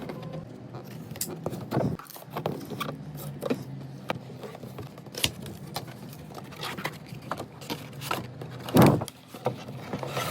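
Figure box and plastic packaging being handled and opened: scattered clicks, taps and rustles over a steady low hum, with the loudest rustle about nine seconds in.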